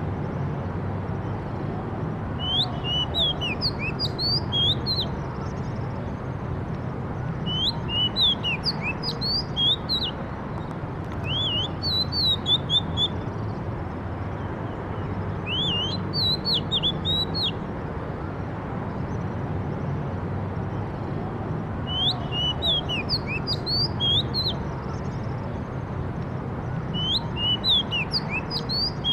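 A songbird singing repeated short phrases of quick, high chirps and sweeps, about six phrases a few seconds apart, over a steady low background rumble.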